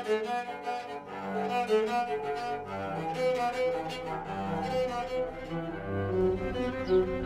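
Bowed cello built from an oil can and scrap wood, playing a melody of held notes; a lower note sounds near the end.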